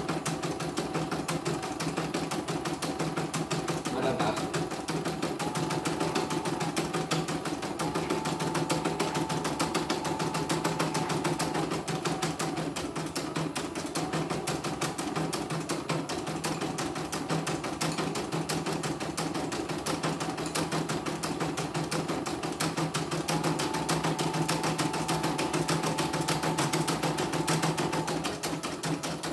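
CNY computerized embroidery machine stitching a design at speed, a rapid, even run of needle strokes over a steady hum, with a higher whine that comes and goes twice. This is the machine's test run after being repaired for messy, tangled stitching.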